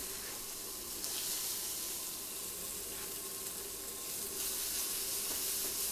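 Diced root vegetables and bacon sizzling in hot oil in a frying pan, a steady hiss, with a few faint clicks as a utensil stirs them.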